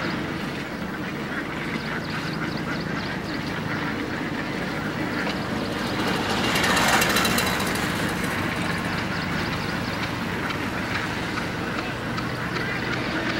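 A large flock of domestic ducks quacking and dabbling in shallow water, over a steady low hum. A louder rushing swell rises and fades about halfway through.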